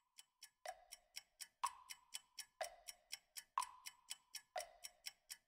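Steady clock-like ticking, about four ticks a second, with every fourth tick stronger and carrying a short ringing tone.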